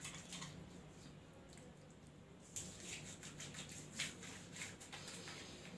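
Hands rubbing soapy lather over a wet face: faint soft rubbing with a few louder wet pats, the loudest about four seconds in.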